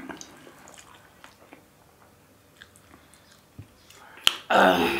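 Close-miked eating by hand: soft, wet little clicks of fingers mixing rice with rajma curry and of chewing. A sharp click comes about four seconds in, followed by a louder burst of noise near the end.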